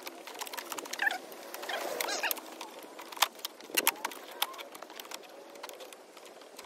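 The folding handle of a PowerSmart cordless lawn mower being raised and its quick-release clamps worked: a string of sharp clicks, knocks and rattles of tube and plastic parts, thickest about three to four and a half seconds in.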